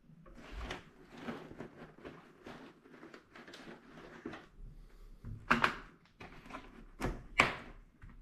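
Handling sounds from the inner padding of an MT Jarama motorcycle helmet being worked loose by hand: irregular rustling and scraping of fabric and plastic, with two louder sharp clicks about five and a half and seven and a half seconds in.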